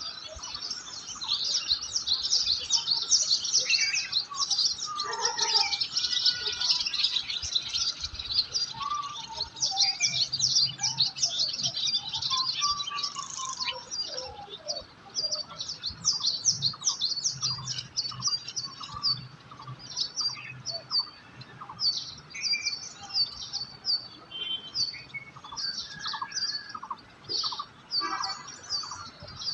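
A chorus of many small birds chirping: a dense tangle of rapid, high chirps, with a few lower, gliding whistled calls in the middle. The chorus thins out about halfway through into separate repeated chirps.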